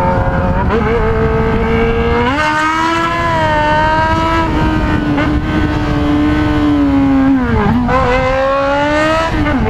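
Yamaha XJ6's inline-four motorcycle engine running loud through a muffler-less straight pipe while riding: its pitch rises about two seconds in, holds steady, dips and climbs again near the end, then drops.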